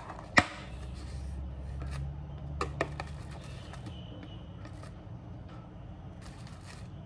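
A plastic strawberry clamshell snapped open with one sharp click about half a second in, then lighter plastic clicks and crackles as strawberries are lifted out and set down on a wooden cutting board. A low steady hum runs underneath.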